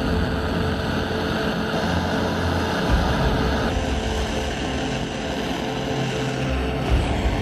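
Gas torch flame blowing steadily as it heats a crucible of scrap silver until it is molten. The sound of the flame shifts a little about four seconds in, as the crucible is tipped toward the ingot mould.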